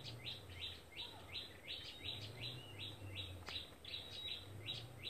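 A bird chirping over and over, short falling chirps at about three a second, with a faint low hum underneath.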